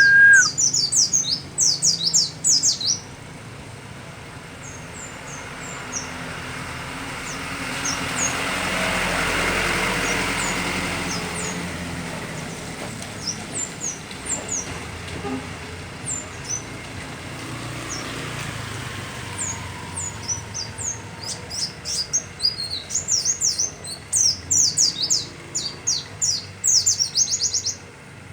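A bird calling in rapid runs of short, high, down-slurred chirps: a burst at the start, scattered single notes, then a denser run building toward the end. In the middle a broad rush of noise swells and fades.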